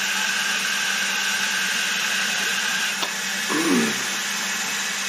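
Milling machine spindle running steadily with an edge finder in it, an even motor hum with a hiss. A brief click comes about three seconds in.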